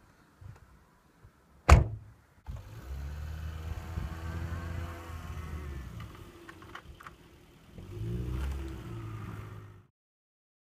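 A car door slams shut once, then a small hatchback's engine runs and revs as the car pulls away through snow, rising again near the end before the sound cuts off abruptly.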